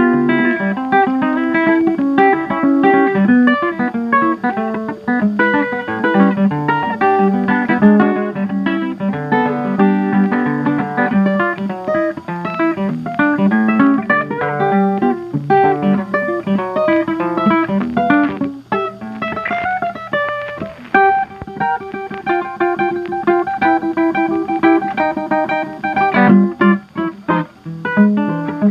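Background music: a lively ragtime tune on plucked guitar, a quick run of picked notes.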